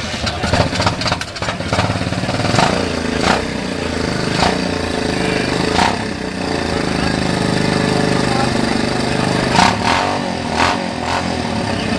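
A motorcycle engine running steadily, with sharp clicks and knocks now and then.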